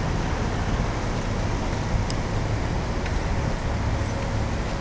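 Steady low rumble of vehicle noise, even throughout with no distinct events.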